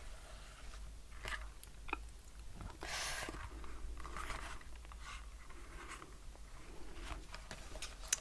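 Cloth drawstring dust bag rustling as a leather notebook cover is slid out of it and handled, with soft scattered clicks and rubbing; the loudest rustle comes about three seconds in.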